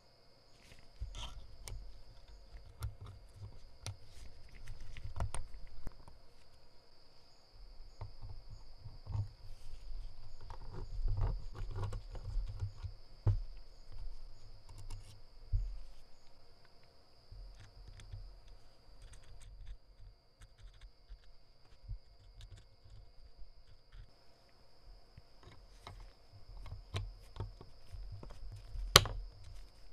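Scattered light clicks, taps and soft low knocks, with one sharp, loud click near the end, over a steady high-pitched whine.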